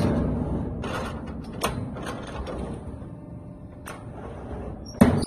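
CNC pipe clamp making machine working: a sharp, loud metallic clank as its die strikes the flat steel strip right at the start and again about five seconds in, with lighter clicks and knocks between.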